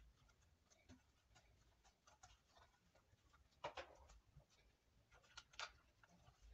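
Near silence with faint handling clicks and knocks as a ring light is twisted onto the mount of its tripod stand, two of them louder in the second half.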